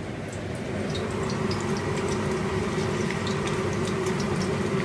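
Masala-coated fish pieces sizzling in hot oil in a kadai, a steady hiss with many small crackles, over a steady low hum.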